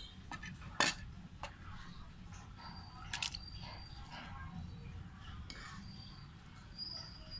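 A metal cleaver scraping chopped chilies across a wooden chopping board and clinking against a metal pot. There are a few sharp clinks, the loudest about a second in and another just after three seconds, over a steady low hum.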